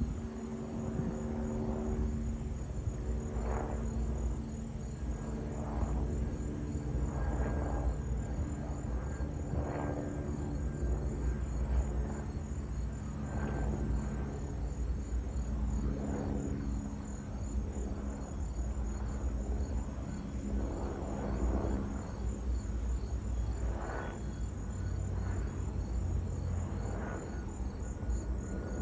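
Airbus H125 single-turbine helicopter flying over at a distance: a steady low rotor and turbine drone that fades from about halfway. Insects chirp throughout in a steady, rapid high pulse.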